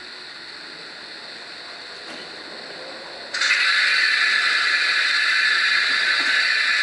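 Built-in sound decoder of a Minitrix N scale Bavarian S 3/6 steam locomotive model, playing through its small speaker. It gives a soft steady steam hiss, then a loud, long, steady whistle that starts suddenly about halfway through and keeps going.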